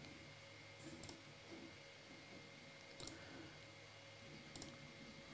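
Near silence with a few faint computer mouse clicks, three or so spread apart.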